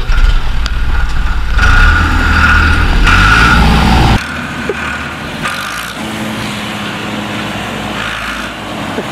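Ford farm tractor engine pulling away under throttle, loud and close, its pitch climbing about three seconds in. About four seconds in the sound drops suddenly to a quieter, steady engine note.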